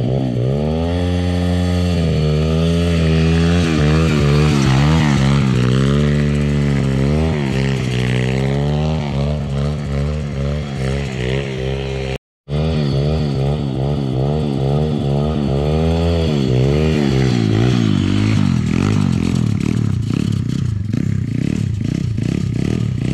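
Turbocharged single-cylinder pitbike engine of a drift trike, revved up and down again and again in quick waves over a steady underlying engine note. Over the last few seconds it turns rough and uneven.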